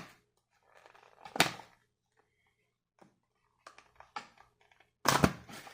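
Handling noises as a pocket multi-tool is worked out of its case: scattered clicks and rustling, one sharp knock about a second and a half in, and a louder burst of knocks near the end.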